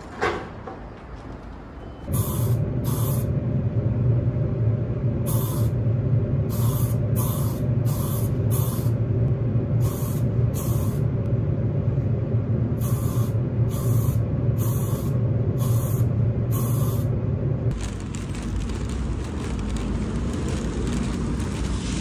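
Aerosol spray can with a trigger handle sprayed in about fifteen short hissing bursts, over a steady low hum from the spray booth's ventilation. Near the end the hum gives way to outdoor street noise.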